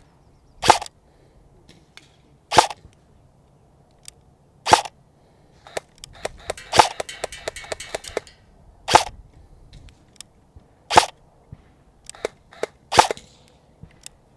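Arcturus AK12 airsoft electric gun (AEG) firing single shots at a steady pace, one about every two seconds, seven in all, each a short sharp report. Between about six and eight seconds in, a quick run of fainter clicks sounds around the fourth shot.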